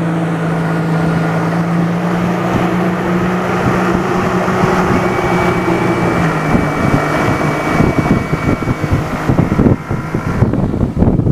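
Yamaha 90 outboard motor running at speed, driving a flat-bottom aluminum boat, with the rush of its wake. The steady engine note is clear for the first half, then gets broken up by wind buffeting the microphone.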